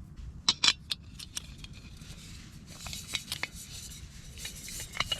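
Small metal camp cooking gear being handled: four sharp metallic clicks and clinks in the first second and a half, then rustling with scattered lighter clicks.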